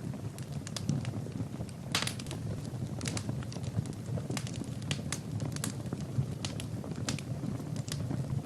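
Wood fire in a fireplace crackling, with irregular sharp pops and snaps over a low steady rumble of the flames.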